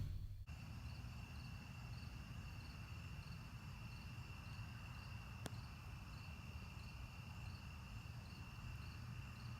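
Crickets and other night insects singing: one steady high trill, with a second insect chirping in regular pulses about one and a half times a second, over a faint low hum. A single faint click about five and a half seconds in.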